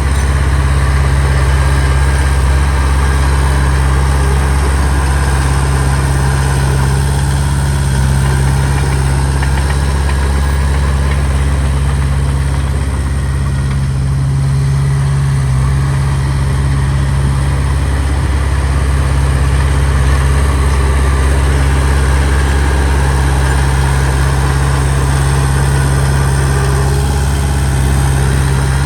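Heavy diesel engine of earthmoving machinery running steadily, with a strong low drone and an even level throughout.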